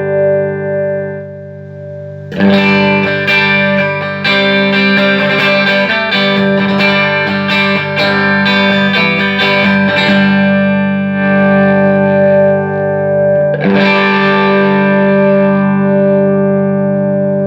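Electric guitar played through a Fender '57 Custom Tweed tube amplifier, freshly recapped with new Mallory coupling capacitors in the preamp and phase inverter. A held chord fades, then about two seconds in comes a run of quickly picked chords and notes, a chord left ringing, and one more strummed chord that sustains.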